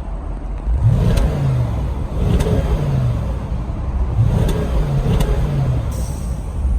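A 2014 Audi S7's 4.0-litre twin-turbo V8 at idle is blipped four times, each rev rising quickly and falling back to idle, through the stock non-sport exhaust.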